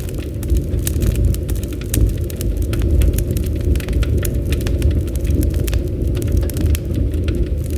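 Campfire burning, with a steady low rumble of the flames and many sharp irregular crackles and pops from the burning wood.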